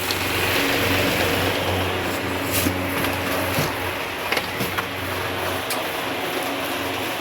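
Workshop machinery running with a steady hum, with a few sharp clicks about a third of the way in and again around the middle.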